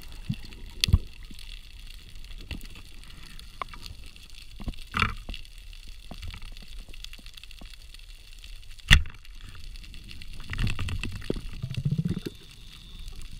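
Underwater sound picked up through a camera housing: a muffled water hiss with scattered sharp clicks and knocks. A loud sharp crack comes about nine seconds in, and a stretch of gurgling near the end.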